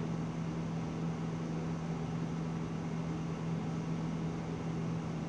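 Steady low hum over a faint even hiss: the room tone of a small room, with no speech.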